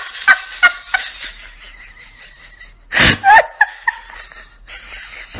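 A person laughing: a few short chuckles in the first second, then a louder burst of laughter about three seconds in.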